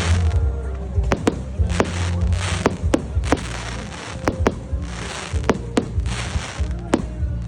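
Fireworks display: a string of sharp bangs from exploding shells, about two a second, with spells of crackling hiss from the bursts, over music playing.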